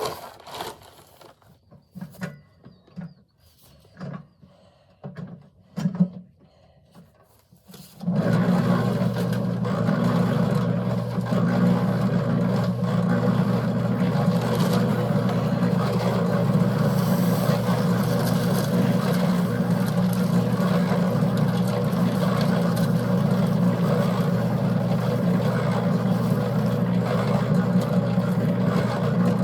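A few scattered knocks, then about eight seconds in a concrete mixer starts up and runs steadily, a motor hum under the turning drum as it mixes a batch for laying cinder blocks.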